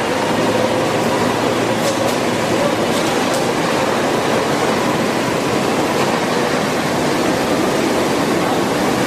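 Steady factory-floor din: an even, hiss-like noise with a faint wavering hum underneath, and a few faint ticks about two and three seconds in.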